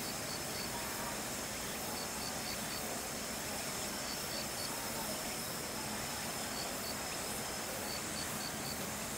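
High, short insect chirps in clusters of three or four, repeating about every two seconds, over a steady hiss of outdoor background noise.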